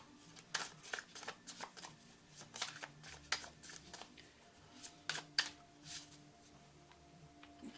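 Tarot cards being shuffled and handled: a run of irregular soft snaps and flicks, with a faint steady hum underneath.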